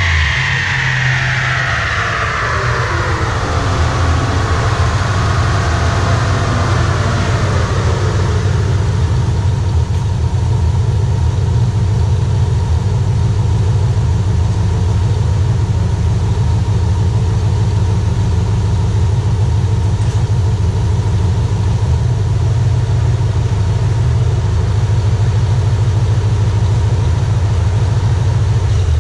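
2005 Pontiac GTO's LS2 V8 with long-tube headers and SLP exhaust coming down off a dyno pull: a whine falls in pitch over the first eight seconds as it coasts down, then it settles into a loud, steady idle rumble.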